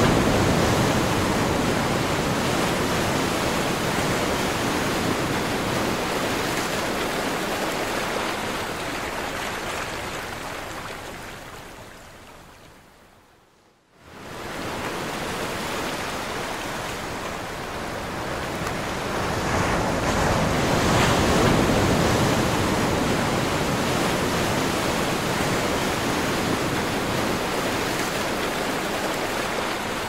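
Sea surf washing onto a pebble beach, a steady rushing wash. It fades gradually to near silence about fourteen seconds in, then comes straight back and swells again.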